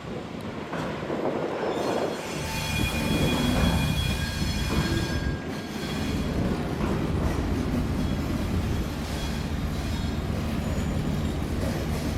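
Railway carriages rolling slowly off a train ferry, their wheels squealing in thin high tones for about three seconds in the first half, over a steady low locomotive hum.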